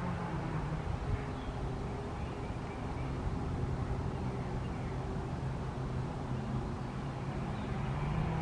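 Steady low mechanical hum like an idling vehicle engine, with outdoor background noise and no siren sounding yet.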